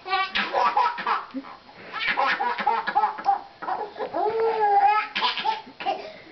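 Baby laughing in bursts of quick belly laughs, with a drawn-out squeal about four seconds in.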